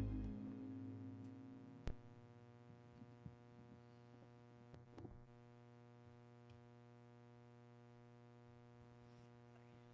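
The last sound of the worship band's song dies away in the first second or so, leaving near silence with a faint steady hum, a sharp click about two seconds in and a few soft knocks a little later.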